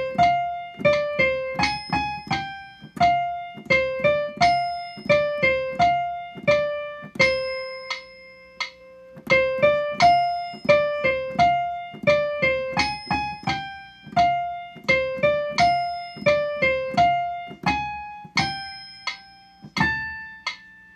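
Piano playing a single-line melody one note at a time, the flute part played at pitch for students to practise along with. There is one long held note about a third of the way in.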